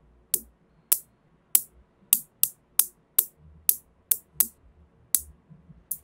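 Small silver magnetic balls snapping one at a time onto a column of magnetic balls: about a dozen sharp clicks, unevenly spaced, roughly two a second.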